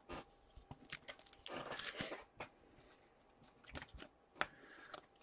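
Faint handling of trading cards and their packaging: scattered sharp taps and clicks, with a short crinkly rustle about a second and a half in.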